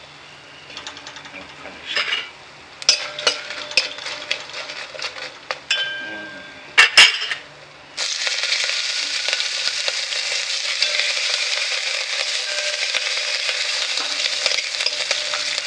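A spoon stirs and clinks against a metal pot of spices tempering in hot oil, with a sharp double clank about seven seconds in. About eight seconds in, green chillies and curry leaves drop into the hot oil and it breaks into loud, steady sizzling.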